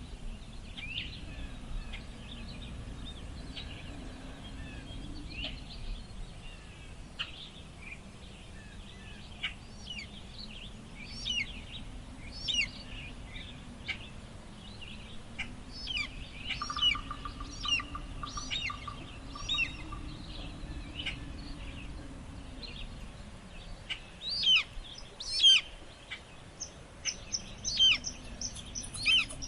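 Steady wind blowing in slow swells, with many birds chirping over it in short, quick calls that come in louder clusters near the end. A rapid, even trill runs for a few seconds in the middle.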